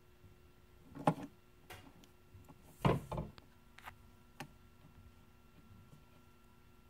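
Small plastic Littlest Pet Shop figurines knocking and tapping against the surface as they are moved by hand, including a figure being toppled over: a few scattered soft knocks, the loudest about three seconds in.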